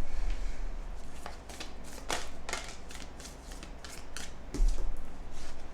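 Oracle cards being shuffled and handled by hand: a run of quick, irregular crisp snaps and rustles of card stock.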